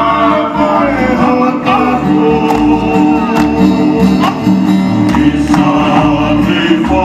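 Live Tongan group singing with held notes and sliding vocal lines, over instrumental accompaniment with sharp percussive hits every second or so.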